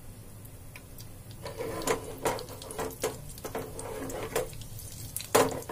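Halved cashews and almonds frying in hot desi ghee in a nonstick pan: a sizzle with crackles, stirred with a spatula that scrapes and taps the pan several times, with a sharper knock near the end.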